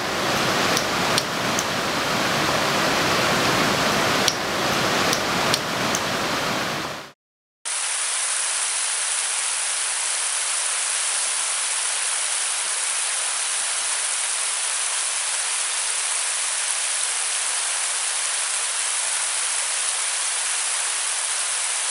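Steady rushing noise with scattered crackles and clicks, cutting off abruptly about seven seconds in. After a half-second gap it returns as a steady, thinner hiss with no low end.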